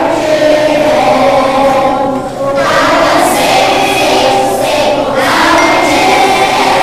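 Children's choir singing in unison, with a short break for breath about two seconds in.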